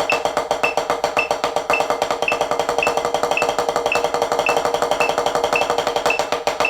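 Alternating single strokes from drumsticks on a rubber practice pad, fast and even, played over a metronome click that ticks about every half second at 110 BPM. This is the metric-mods exercise, moving between 16th notes and sextuplets.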